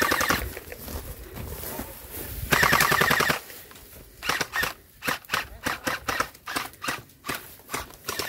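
Electric gel blaster rifle firing: a short full-auto burst at the start and a longer one about two and a half seconds in, each a fast buzzing rattle. From about four seconds in comes a run of separate sharp shots, roughly three a second.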